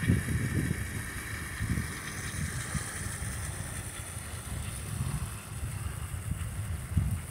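Wind rumbling on the microphone, with a steady high-pitched hiss above it.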